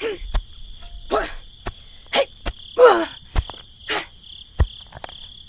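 Insects trilling steadily and high, with about six short calls that fall in pitch, each roughly a second apart, and several sharp clicks in between.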